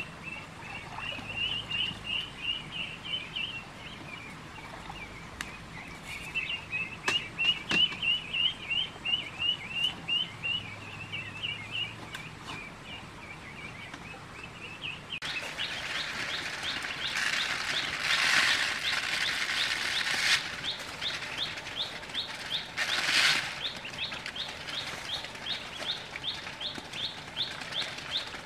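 Ducklings peeping: a steady run of short, high, evenly repeated peeps, about four a second in the second half. Bursts of rustling handling noise come a little past halfway and again near the end.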